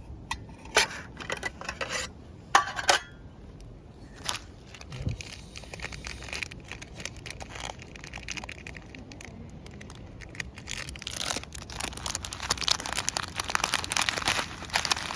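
An aluminium mess tin being fitted out as a smoker. A few sharp metal clinks and knocks in the first three seconds, then a long stretch of crinkling and rustling that gets busier toward the end.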